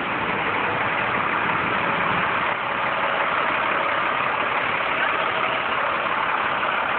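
A large truck's engine idling, mixed with the steady rush of shallow floodwater running across the street. The sound holds level throughout, with no distinct events.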